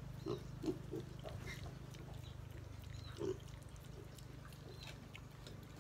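Wild boar piglets giving a few short, soft grunts while eating banana, with faint chewing clicks.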